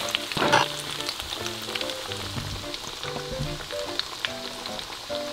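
Breaded jalapeños deep-frying in hot oil in a wok, sizzling and crackling steadily with many small pops, with a louder burst of sizzle about half a second in.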